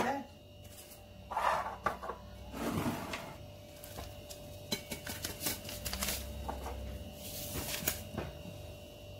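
Small paper sachets rustling and crinkling as they are handled and emptied into a glass bowl of semolina: a few short, scattered crackles and light taps, over a faint steady hum.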